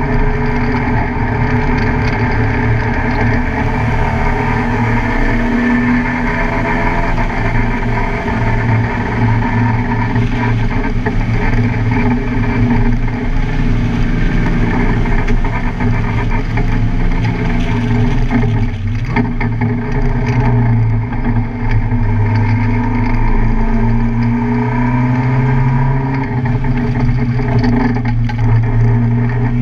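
Car engine running hard on a race track, its pitch rising and falling as the car accelerates, lifts and shifts through the gears.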